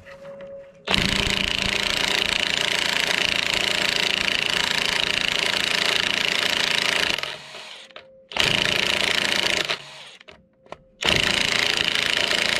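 DeWalt DCF899 cordless impact wrench hammering as it drives a 1/2 by 5 inch lag bolt into wood on its second speed setting. It runs in three bursts: a long run of about six seconds starting about a second in, then two short ones.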